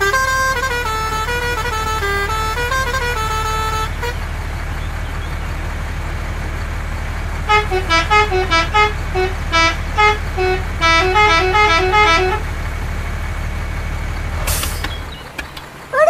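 A musical horn plays a short stepped tune twice, over a steady low engine-like drone. Near the end there is a click, and the drone then stops.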